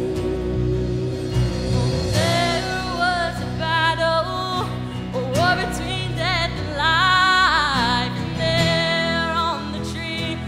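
Live band music (electric bass, electric guitar and keyboard) with a woman's lead vocal that comes in about two seconds in and holds long notes with a wide vibrato.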